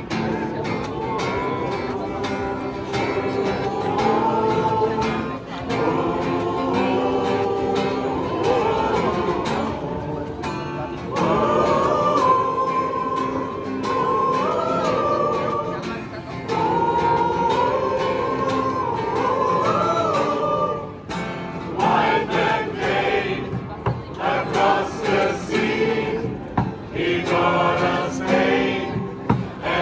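A choir singing in several-part harmony without clear words, long held chords that give way to short rhythmic phrases in the last third.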